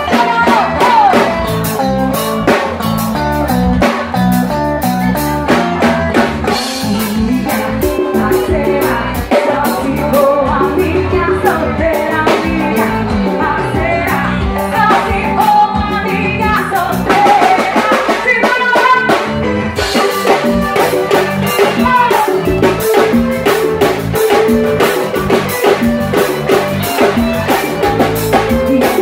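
Live band music amplified through a PA: a woman singing into a microphone over a steady drum-kit dance beat, with accordion, guitar and keyboard. The singing comes and goes over the band.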